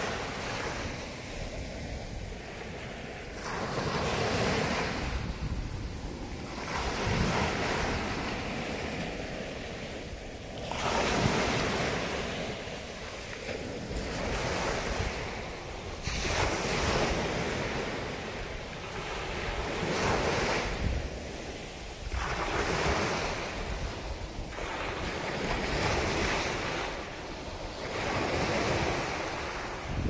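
Ocean surf breaking and washing up a sandy beach, each wash of foam swelling and fading every few seconds.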